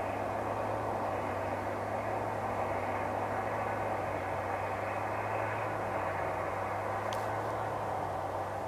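Steady drone of machinery from a large industrial building: a constant rushing noise with a low hum beneath it, the noise nuisance being documented. A faint tick about seven seconds in.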